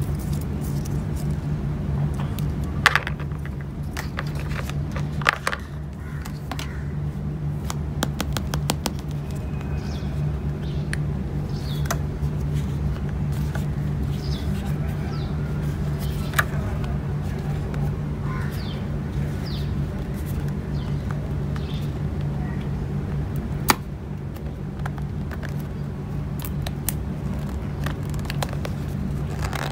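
Handling of iPhone packaging: sharp clicks and light rustles from a charging cable, its paper wrap and a small cardboard box being turned in the hands, scattered every few seconds over a steady low hum.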